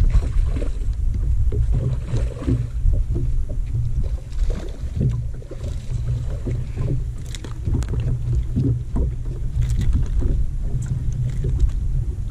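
Water lapping and slapping against a bass boat's hull, with a low, uneven rumble of wind on the microphone and many small knocks and splashes scattered through.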